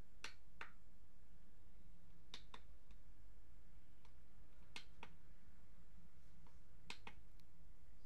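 Push buttons on a home theater control panel clicking as they are pressed and released, four times, each press a pair of sharp clicks about two seconds apart.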